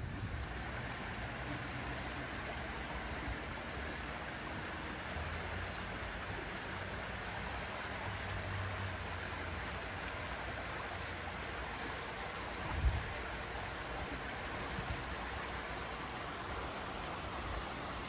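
Steady rush of running water from a small stream, with a brief low thump about two-thirds of the way through.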